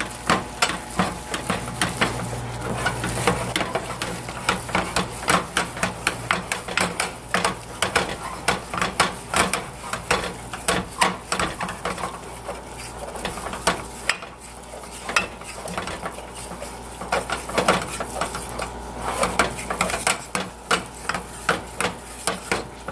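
Wooden spoon stirring and beating thick choux dough in a stainless steel saucepan, knocking and scraping against the pan in quick, uneven strokes, several a second. The flour paste is being cooked until it pulls together into a ball.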